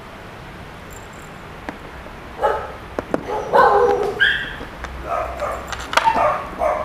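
A dog barking and yipping in short calls that start about two and a half seconds in, with a few light clicks from a cardboard box being handled.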